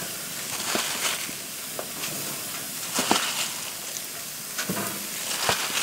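Oiled, seasoned center-cut pork chops sizzling as they sear on a very hot grill of about 700 degrees, a steady hiss with a few scattered crackles and pops.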